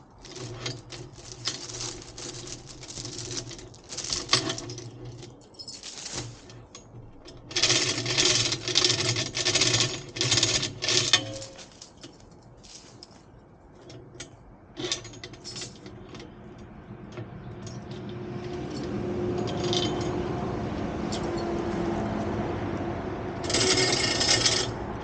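Metal chains clanking and rattling in bursts as they are handled, loudest around the middle, over a low steady hum. In the second half a steadier mechanical noise builds up, with another burst of rattling near the end.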